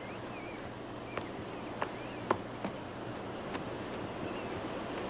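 Quiet outdoor ambience: a steady hiss with a few short high chirps and about five scattered sharp clicks.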